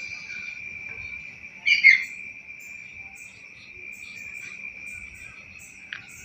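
Crickets trilling steadily in a night garden, one high continuous drone. About two seconds in, a brief loud call with a bending pitch cuts across it, and faint high chirps come and go.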